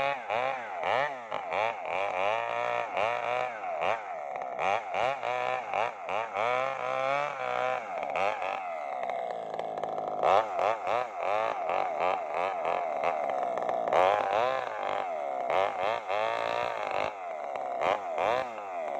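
Maestro mini chainsaw running under load while ripping a sengon log lengthwise, its engine pitch rising and falling over and over as the chain bites into the wood and eases off.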